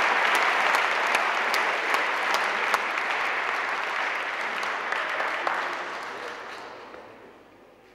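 Audience applauding, a dense patter of many hands clapping that thins out and dies away over the last few seconds.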